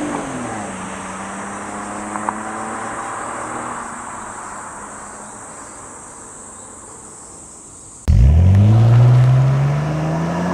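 BMW E46 325i's inline-six engine heard through its exhaust. The revs drop back at the start and the sound fades away steadily. About 8 seconds in, a loud rev starts suddenly and climbs in pitch.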